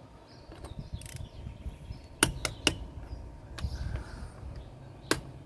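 Click-type torque wrench tightening a car lug nut, set to 100 foot-pounds: low rattling handling, then three quick sharp clicks about two seconds in and another single click near the end. The click marks the set torque being reached.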